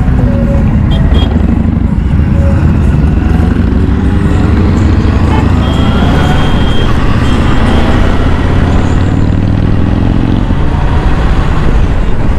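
Motorcycle engines running on the move, a steady deep rumble with revs rising and falling as the bikes accelerate and shift.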